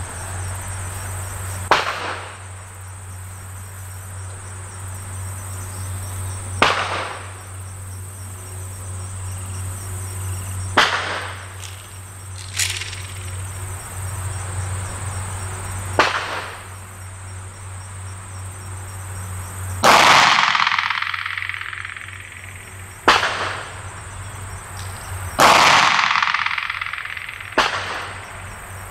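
Single gunshots a few seconds apart, two of the later ones louder with a long fading echo, over a steady high drone of insects.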